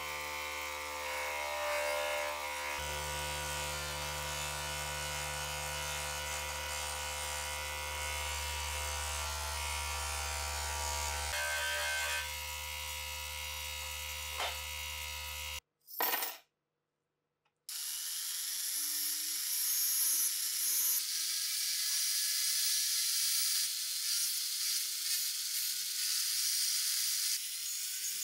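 Motor of a bench-mounted buffing wheel running with a steady hum as a brass scale pan is pressed against it with polishing paste. It stops with a sharp knock and a short silence. Then a rotary tool with a cut-off disc runs with a whine that slowly rises in pitch, grinding against a steel part.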